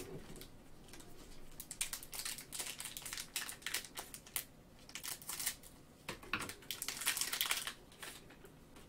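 Plastic cello trading-card pack being slit open and the cards pulled out: crinkling and crackling of the wrapper in quick sharp ticks, with a longer, denser rustle about a second before the end as the stack slides free.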